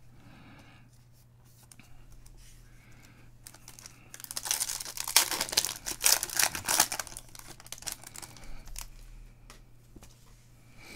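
Foil wrapper of a baseball card pack being torn open and crinkled by hand, a dense crackling rip from about three and a half seconds in that lasts some four seconds, then fades into faint rustling of the cards and wrapper.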